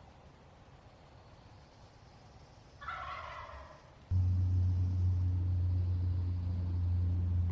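A wild Merriam's turkey gobbles once, a rattling call lasting about a second, about three seconds in. Just after it, a steady low drone cuts in abruptly and is the loudest sound to the end.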